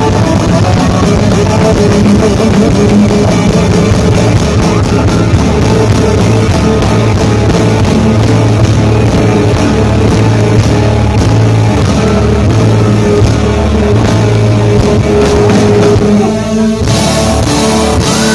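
Live gospel rock band playing loudly through the PA: drum kit, electric guitar and keyboards, with a brief drop in the sound near the end.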